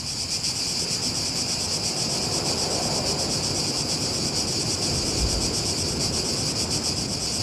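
A dense chorus of crickets chirping, a steady high-pitched trill with rapid, even pulsing.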